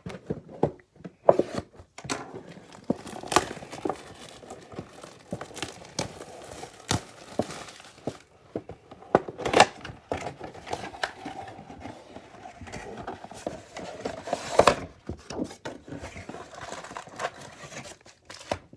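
Packaging on a retail mega box of trading cards crinkling and tearing as the box is unwrapped and opened, with irregular sharp crackles and taps.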